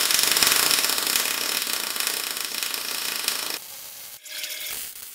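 MIG welding arc crackling and sizzling steadily as a bead is run on a steel bench frame, stopping about three and a half seconds in.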